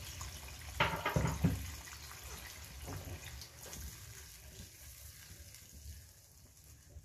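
A silicone spatula stirs chicken pieces in a pan of freshly added hot water and masala, and the liquid sloshes. There are a few knocks about a second in, and the stirring quietens toward the end.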